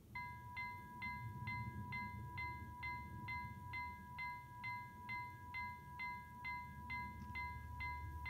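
Railway level crossing warning bell starting to ring a moment in, then striking steadily about twice a second with a ringing tone held between strikes, the warning for an approaching train.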